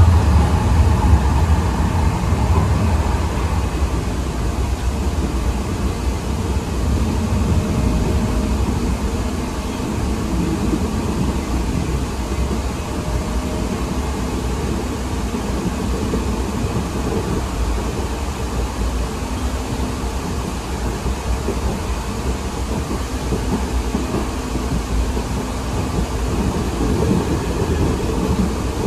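Ride noise inside the passenger cabin of a 2023 Siemens LRV4 light rail car travelling along the track: a steady low rumble of the car's wheels on the rails, a little louder for the first second or two.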